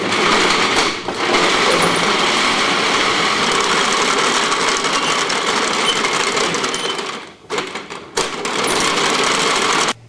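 Wooden goat-powered treadmill and the washing machine belted to it, run by hand, clattering rapidly. The rattling drops away about seven seconds in, there is a sharp click, and then the clatter starts again.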